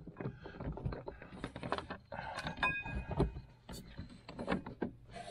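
Steel chain and sprocket gears clinking and scraping as they are worked by hand onto splined shafts in a snowmobile chaincase: an irregular string of light metallic clicks and knocks, with a brief ring a little past halfway.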